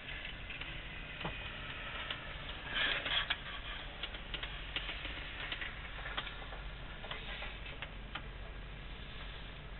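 Irregular light ticks and clicks, with a brief louder rustle about three seconds in.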